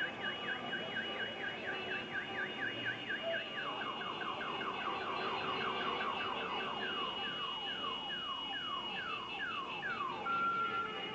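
An electronic siren: fast up-and-down yelping for about three and a half seconds, then switching to falling sweeps that come slower and slower, stopping about ten seconds in.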